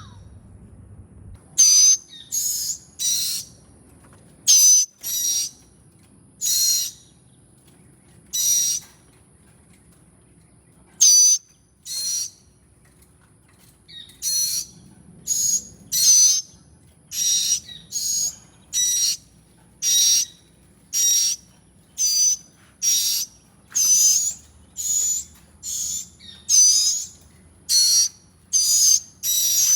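Nestling birds calling: short, raspy calls repeated about once a second, with a few longer pauses in the first half.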